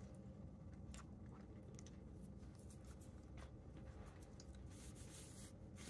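Near silence: faint chewing of a buttery cheese sandwich cracker, a few soft clicks over a low steady room hum.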